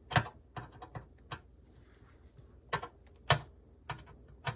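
Irregular sharp metal clicks and taps, about eight of them, as a screwdriver is fitted to the screws holding the circuit boards in an LCD monitor's steel chassis. The bit is a Torx/hex bit that does not fit the Phillips screws.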